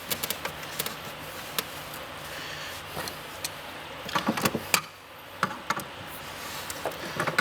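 Irregular clicks and knocks of a wrench working on the nuts of a spa heater's fittings as they are tightened, with a quick run of knocks about four seconds in.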